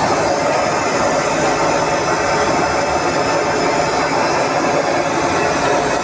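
An engine running steadily and loudly, with a rough, even noise and no change in pitch.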